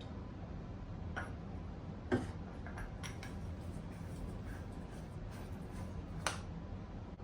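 Light clicks and taps of metal lathe parts being handled and fitted during headstock reassembly, with two sharper knocks about two seconds in and about six seconds in, over a low steady hum.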